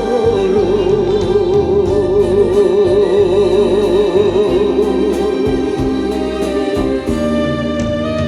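Enka music: a long held melody note with heavy, even vibrato over the backing for about the first half, then the instrumental accompaniment carries on without a vocal line.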